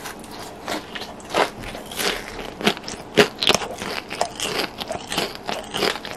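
Irregular, crisp crackling from the breadcrumb-and-glutinous-rice crust of freshly fried jumbo hot dogs: a quick series of sharp crunches at uneven intervals, several of them standing out loudly.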